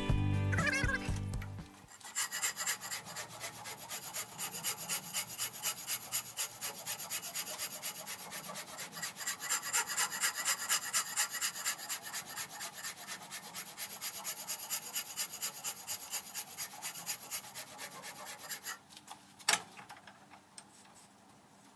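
Hand file rasping back and forth over a jigsaw-cut edge, a little over two strokes a second, working down to the marked line. The filing stops near the end, followed by a single knock.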